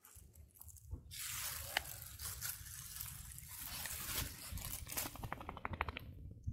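Maltese shih tzu digging in dry sand with its front paws: rapid scratching and scraping of sand, ending in a quick run of strokes near the end.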